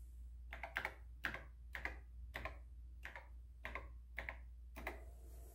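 Typing on a TRS-80 Model III keyboard: about nine key clicks at an uneven pace, some in quick pairs, stopping about five seconds in, over a steady low hum.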